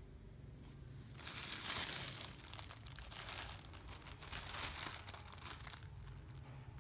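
Crinkling and crackling, as of material being crumpled or handled, in uneven bursts of quick clicks. It starts about a second in, is loudest near two seconds, and stops about a second before the end.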